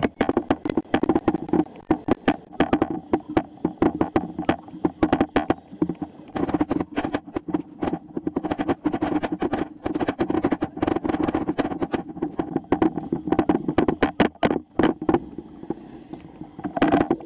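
Riding noise from a bicycle, picked up by a camera mounted on the bike: dense, irregular rattling and knocking as it rolls over the street, over a steady rushing of tyre and wind noise.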